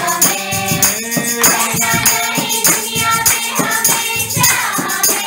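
Group of girls singing together, with hand clapping and a tambourine keeping a steady beat.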